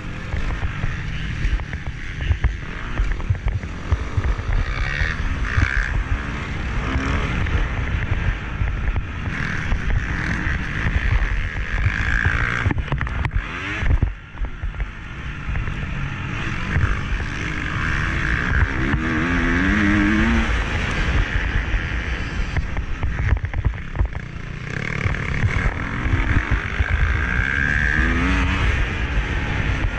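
Motocross bike engine revving up and down as the rider works the throttle, heard from a bike- or helmet-mounted action camera under heavy wind buffeting. There is a brief drop in the engine sound about halfway through.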